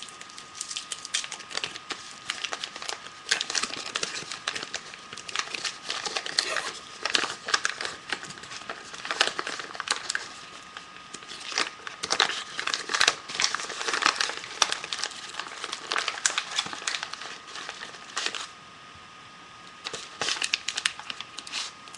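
Crinkling and rustling of a card pack's wrapping being carefully opened by hand, in irregular bursts with a short lull near the end.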